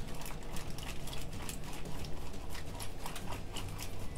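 Plastic zip-top bag crinkling and crackling irregularly as the marinade inside is squeezed and mixed by hand.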